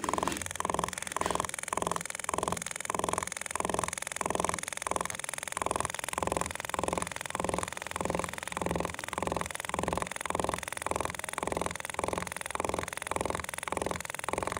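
Meta V digital SMP tattoo machine buzzing in short, evenly timed pulses, about two and a half a second, as its auto mode fires the needle in bursts to lay dots of pigment.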